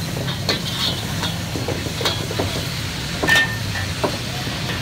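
A metal utensil scraping and clinking against a karahi as food sizzles and hisses in it, with sharp strikes every second or so, the loudest a little past the middle. A steady low rumble runs underneath.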